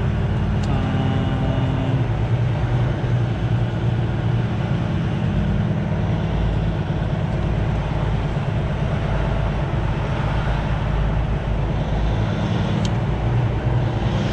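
Semi truck's diesel engine running steadily at low speed, heard from inside the cab, with one faint click near the end.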